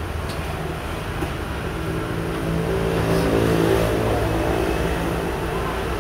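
A motor vehicle's engine passing close by, swelling to its loudest midway and then fading, over steady street background noise. A faint click or two of a xiangqi piece set on the board near the start.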